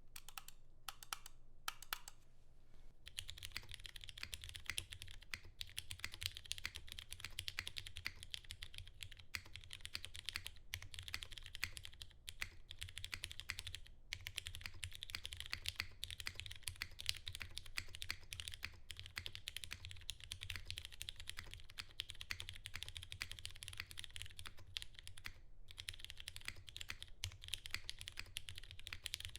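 Typing on a Geon F2-8X mechanical keyboard with broken-in Cherry MX Brown switches, lubed and filmed, under GMK keycaps. A few separate key presses, then steady fast typing from about three seconds in, broken by a few short pauses.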